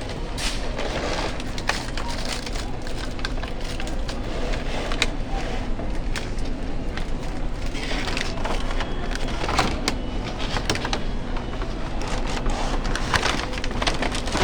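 Rustling, crinkling and irregular sharp clicks of packaging and plastic parts being handled, over a steady low background hum.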